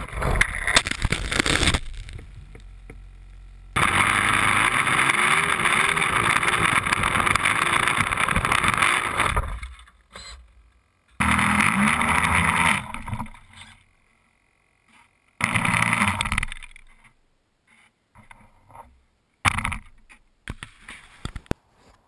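Onboard sound of a radio-controlled Cub model airplane: engine and rushing air, loud. It comes in several stretches that cut off abruptly, with near silence between them.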